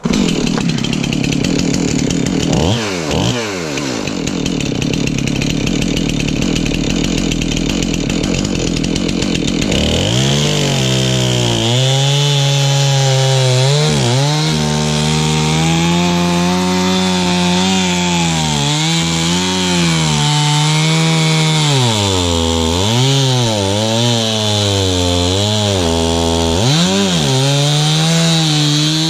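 Chainsaw engine running and cutting wood. After about ten seconds of dense cutting noise the engine's pitch comes through clearly, dropping again and again as it bogs in the cut and climbing back between dips.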